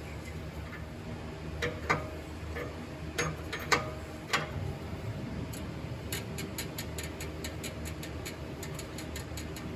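Ratchet wrench clicking at about five clicks a second as the new oxygen sensor is threaded into the exhaust downpipe, after a few sharper metal knocks and clinks of the tool being fitted.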